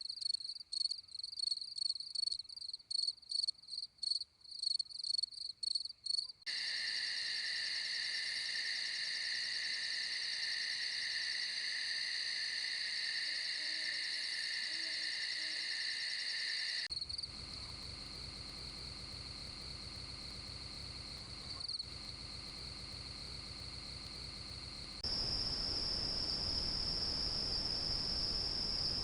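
Crickets and other singing insects: first a run of quick, high-pitched pulsed chirps for about six seconds, then a steady high trill in several pitch bands. The sound changes abruptly twice more to steady single-pitch high trills, the last slightly higher and louder.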